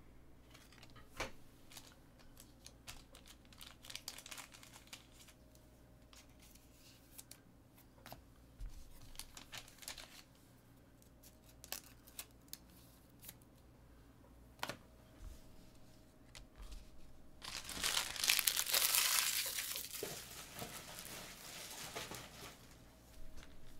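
Faint scattered clicks and taps of trading cards being handled, then about three seconds of loud tearing and crinkling as card-box packaging is ripped open, fading out into softer rustling.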